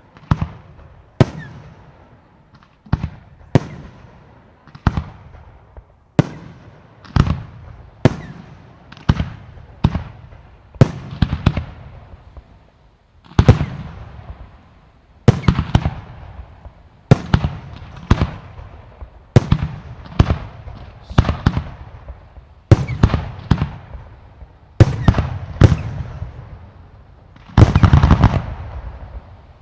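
Aerial fireworks bursting one after another, a sharp bang about every second, each trailing off in a rumbling echo. Near the end a quick run of bursts merges into one longer rumble.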